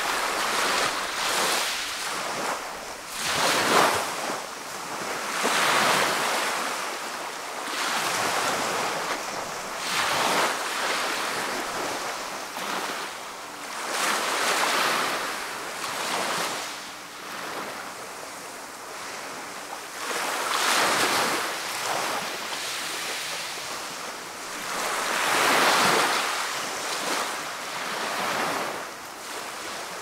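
Small sea waves breaking and washing up a pebbly shore in a slow rise-and-fall hiss, one surge every four to five seconds.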